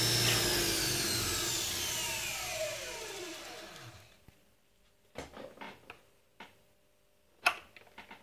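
Dynamo test bench's electric drive motor and coupled Jawa/ČZ dynamo spinning down after being switched off, the whine falling steadily in pitch for about four seconds until it stops. A few light knocks follow, with one sharp click near the end, the loudest single sound.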